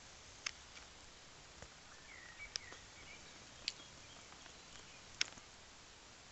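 Quiet outdoor ambience with a faint bird chirp and four short, sharp ticks spread about a second apart.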